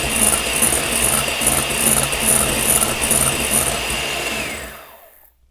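Electric hand mixer running steadily, its beaters whipping egg whites into French meringue in a glass bowl while sugar is added gradually. About four seconds in it is switched off: its whine drops in pitch and the sound dies away.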